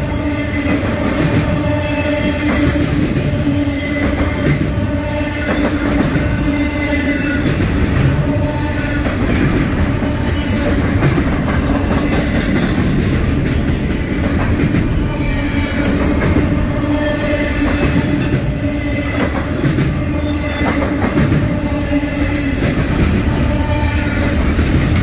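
Intermodal freight train's double-stack container cars rolling past at speed: a steady rumble of steel wheels on rail, with a rhythmic clickety-clack over the rail joints and brief ringing wheel squeals that come and go.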